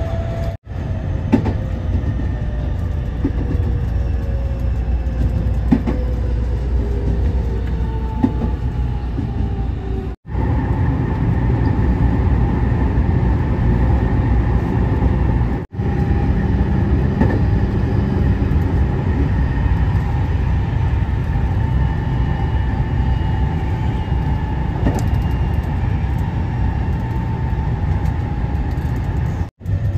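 JR West 207 series electric train running, heard from inside the front car: a steady rumble of wheels on rail under the whine of the inverter-driven traction motors, the whine falling in pitch over the first several seconds and then steadier. There are a few sharp clicks of wheels over rail joints, and the sound cuts out briefly three times.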